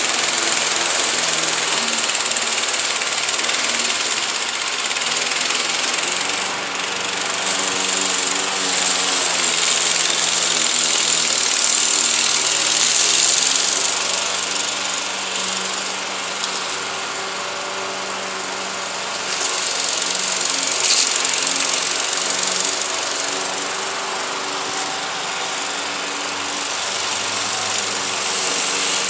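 The Briggs & Stratton 550-series 140cc single-cylinder engine on a Craftsman 21-inch push mower runs steadily under load, cutting thick, overgrown grass. Its level rises and falls as the mower is pushed back and forth.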